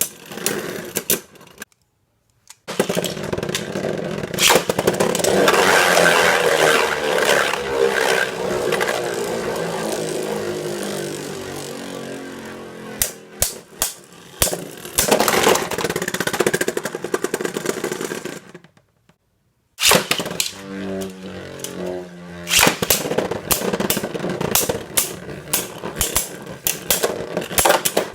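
Beyblade Burst tops, Crash Ragnaruk among them, spinning and clashing in a plastic Takara Tomy B-09 stadium, over several battles cut together. A whirring spin falls slowly in pitch as the tops lose speed, and sharp plastic clacks sound as they collide, coming thick and fast near the end.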